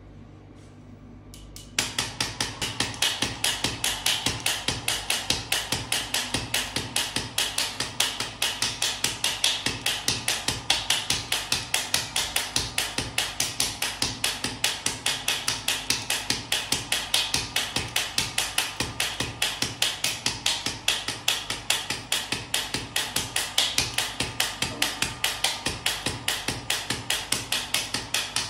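Radial shockwave therapy handpiece firing a fast, even train of sharp clicking pulses against the upper back, starting about two seconds in.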